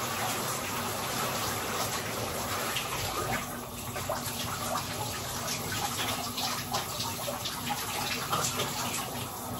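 Shower running behind a closed curtain: a steady spray of water with small irregular splashes.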